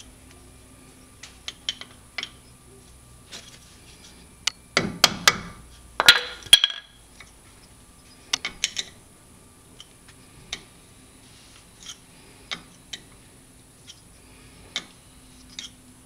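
Wrench clicking and clinking against the brake caliper bracket bolts and rotor as the bracket is unbolted: scattered metallic clicks, with two louder clanking rattles about five and six seconds in.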